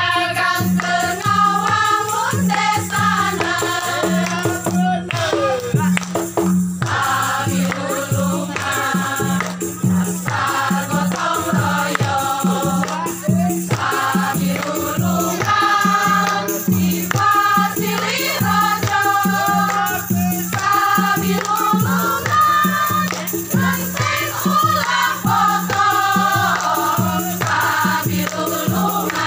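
Music: a group of voices singing together over a steady low accompaniment.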